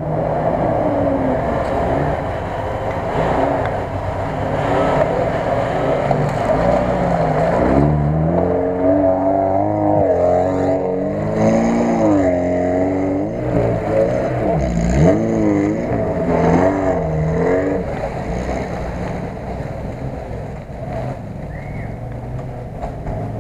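Off-road vehicle engines running in mud, revving up and down repeatedly for several seconds in the middle, then easing off toward the end.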